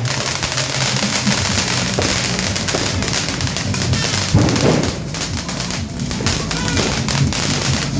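Fireworks and firecrackers crackling and popping densely and without a break, with one louder bang about halfway through, over background music.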